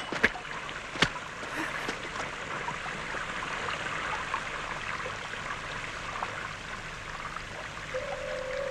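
A couple of sharp knocks in the first second, then a steady rushing noise; a held musical note comes in near the end.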